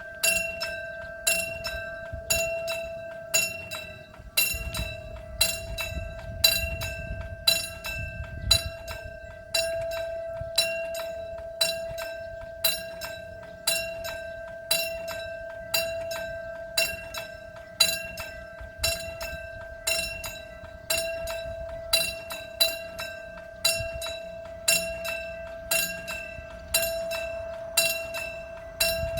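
Railroad level-crossing warning bell ringing in an even, repeating rhythm, roughly one and a half strikes a second, over a steady ringing tone. A low rumble rises under it between about five and nine seconds in.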